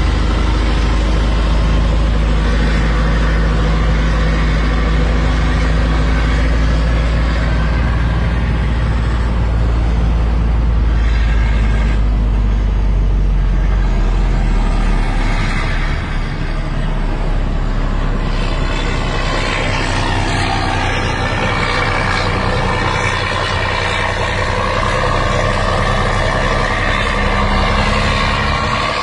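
Heavy diesel truck engine pulling uphill under load, heard from inside a truck cab as a deep, steady drone. About sixteen seconds in it dips briefly and the low drone changes pitch.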